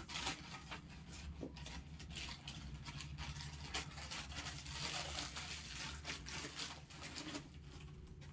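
Crisp organza fabric rustling and crinkling in irregular bursts as it is handled and unfolded, over a low steady hum.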